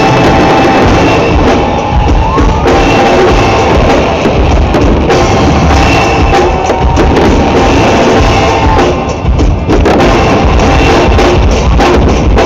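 Loud music with a drum beat played over loudspeakers, mixed with the bangs and crackle of an aerial fireworks display.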